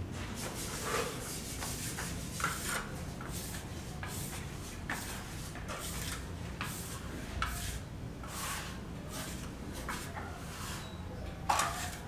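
Plasterer's trowel scraping and spreading cement render on a concrete wall, in short irregular strokes about one a second.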